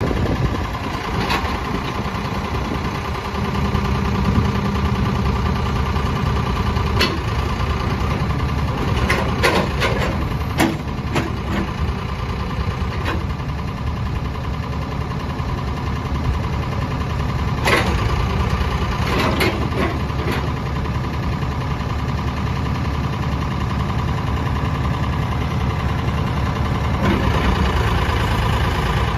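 Diesel engine of a Ford 455C loader backhoe idling steadily, with sharp clanks and knocks now and then.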